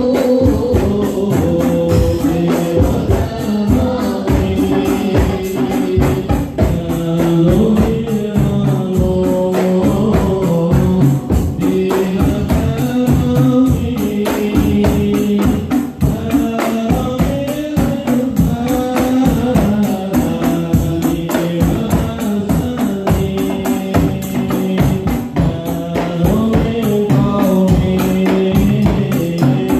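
Live marawis music played over Yamaha DBR15 powered PA speakers: a group of voices singing an Arabic devotional song over a busy, fast rhythm of hand drums and a cymbal.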